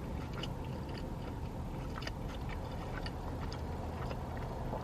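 Close-up chewing of a wrap, with soft scattered mouth clicks over a steady low hum.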